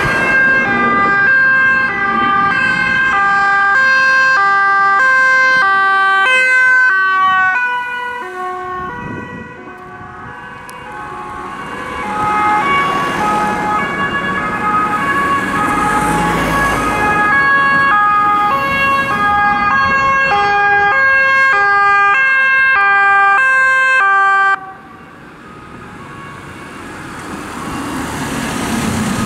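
Two-tone emergency-vehicle sirens alternating between a high and a low note about twice a second. The pitch drops as a vehicle passes about seven seconds in and the sound fades. A second siren then builds, is cut off suddenly a few seconds before the end, and is followed by quieter road noise.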